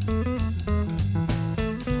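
Instrumental jazz from a live band: a plucked-string solo of quick note runs over a walking bass line and drums keeping a steady beat.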